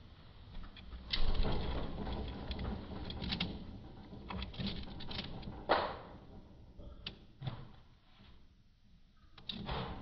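Irregular knocks, clicks and scraping from budgies moving about their cage, with one sharper knock a little past halfway.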